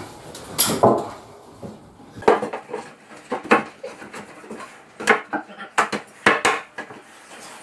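Irregular sharp knocks and clinks, about a dozen in all, from a pine board and small hard fittings being handled and set in place.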